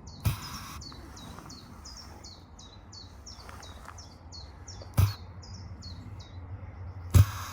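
Common chiffchaff singing: a long run of short, high notes repeated about two to three a second, alternating between two slightly different pitches. Three loud thumps break in, one just after the start, one about five seconds in and the loudest near the end.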